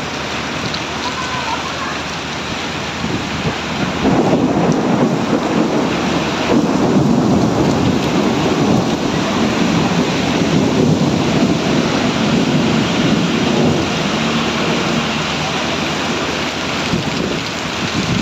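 Heavy downpour of a thunderstorm, a dense steady rush of rain that grows louder about four seconds in and stays heavy.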